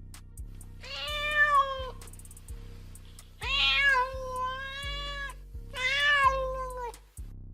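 Domestic cat meowing three times, long drawn-out meows each about a second or more, over background music with a steady repeating beat.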